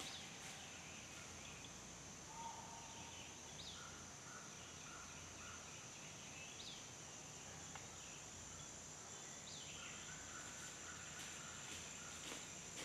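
Quiet woodland ambience: a steady high-pitched insect drone, with a few faint short chirps about every three seconds.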